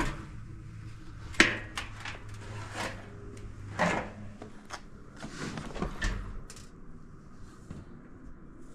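Handling noise from working inside an opened electric dryer: scattered knocks and clicks of parts being moved, the loudest about a second and a half in and again near four seconds. A low steady hum lies under them and fades about halfway through.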